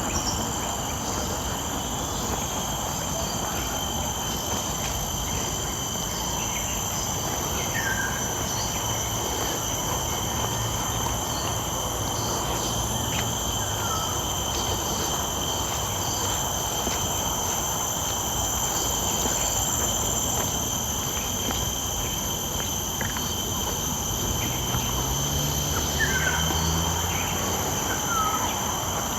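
Steady chorus of insects in tropical greenery, several shrill tones held without a break, with a few short bird chirps at about 8, 14 and 26 seconds in. A low hum swells briefly around the middle and again near the end.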